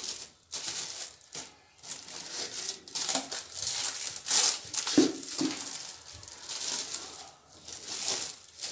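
Plastic cling film crinkling and rustling as it is pulled off the roll and stretched over a plastic mixing bowl. Two short soft knocks come about halfway through.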